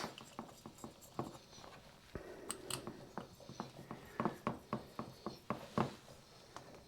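Screws being driven in with a hand tool, fastening a part back onto a chainsaw engine: a quiet run of short, light clicks, about two or three a second, with a sharper click near the end.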